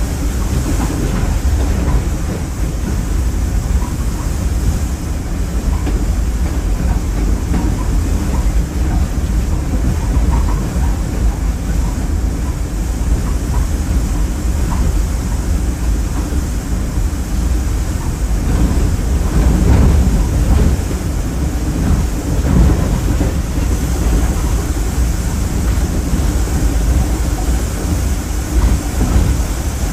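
Caltrain commuter train running along the line: a steady low rumble of wheels on rails with scattered clicks and rattles, swelling a little past the middle.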